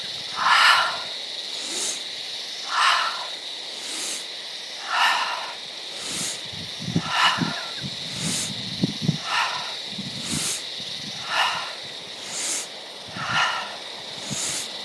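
Outdoor animal chorus: a steady high insect drone, with a short raspy call repeating about once a second.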